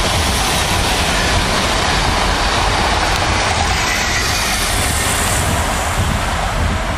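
Suburban electric multiple unit passing at speed close by: a steady, loud rumble and rush of wheels on the rails, easing slightly near the end.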